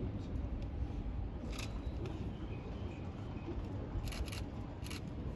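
Low steady rumble of a stationary E233-series electric train held at a station, with a few short, sharp high-pitched clicks about a second and a half in and again around four to five seconds in.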